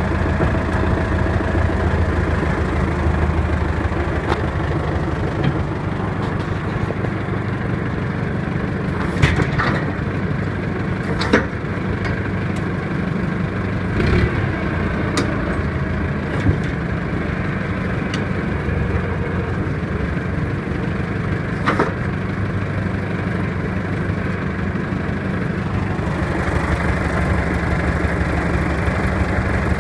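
Belarus tractor's diesel engine idling steadily, with a few short sharp clicks or knocks over it.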